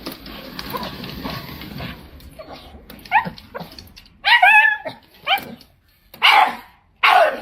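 A dog giving a run of short, high-pitched calls, about half a dozen, roughly a second apart, starting about three seconds in after a stretch of low noise.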